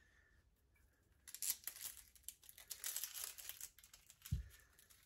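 Dry papery skin being peeled off a red onion by hand: a couple of seconds of crackling and crinkling, then a single low thump near the end.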